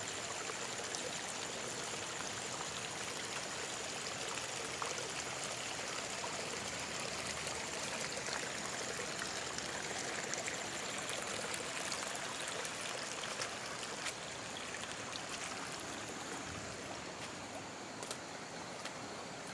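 Storm runoff from a subsurface creek pouring out of the ground from under a wooden timber into grass: a steady rush of flowing water, a little quieter after about 14 seconds.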